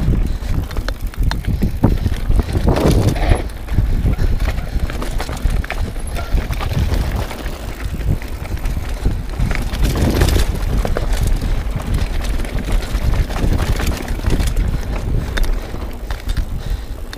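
Mountain bike riding down a rocky dirt trail: tyres rolling and crunching over dirt and rock, with the bike knocking and rattling over the bumps against a constant low rumble.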